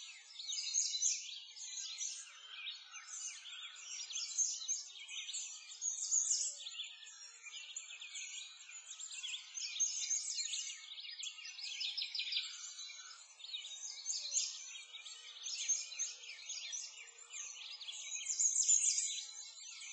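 Many small birds chirping and twittering in a dense, continuous, high-pitched chorus.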